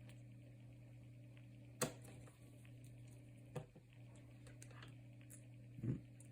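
Small metal clicks of a screwdriver and tiny screws on a cell phone's frame: a sharp click about two seconds in, another near the middle, and a softer knock near the end, over a steady low hum.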